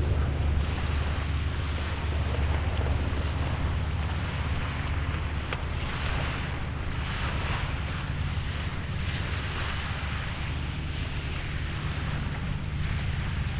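A steady low engine drone under rushing water noise that swells and eases, with wind buffeting the microphone.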